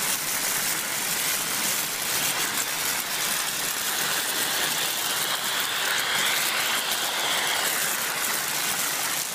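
Vacuum cleaner running steadily as its nozzle sucks up dried beans and macaroni, the pieces rattling and clicking as they are pulled up the metal tube.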